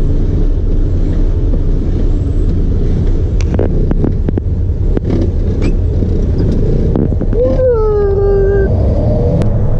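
Heavy truck driving, heard from inside the cab: a steady, loud engine and road rumble, with a short held tone that dips slightly in pitch about three-quarters of the way through.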